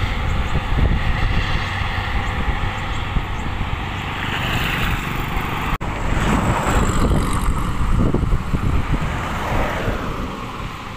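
CAT 140G motor grader's six-cylinder diesel engine running steadily as it works the road shoulder, mixed with passing road traffic and wind buffeting the microphone. The sound cuts out for an instant about six seconds in.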